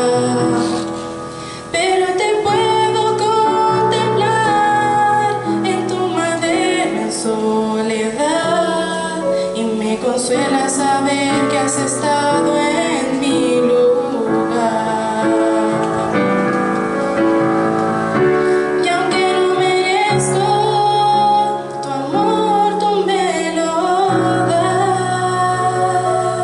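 A woman singing a hymn into a microphone, accompanied by piano.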